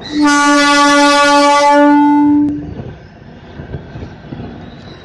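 Indian Railways DEMU (diesel-electric multiple unit) sounding its horn in one long single-note blast of about two and a half seconds. After the blast stops, the quieter rumble of the train running carries on.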